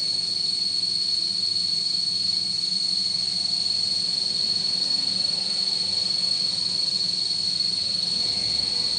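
CNC milling machine running, with a steady high-pitched whine over an even hiss.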